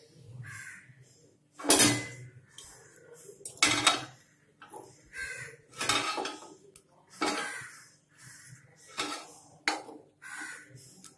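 A metal fork clinking and scraping against a multi-cavity appam pan and a plate as small cakes are lifted out. It makes a series of sharp clinks, one every second or two.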